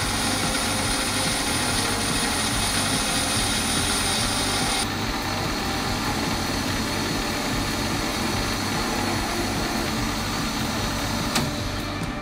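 Metal lathe running while a carbide insert tool turns a metal bar down. A high hiss from the cut stops about five seconds in, while the machine keeps running steadily.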